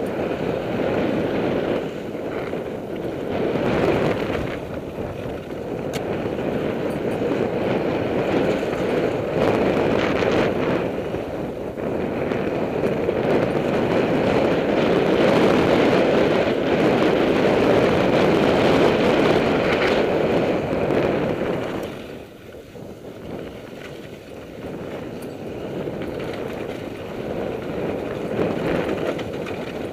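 Wind buffeting the microphone and mountain-bike tyres rolling over dirt and loose rock on a fast descent, with an occasional knock from the bike. The rush eases off about three-quarters of the way through.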